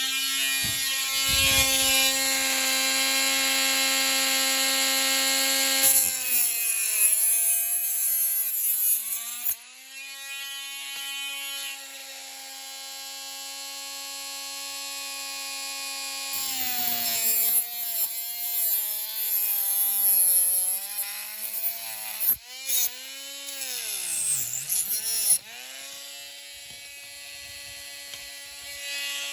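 Small handheld rotary power tool cutting away part of a model car's plastic interior: a steady high motor whine that sags and wavers in pitch each time the cutter bites in, most deeply near the end.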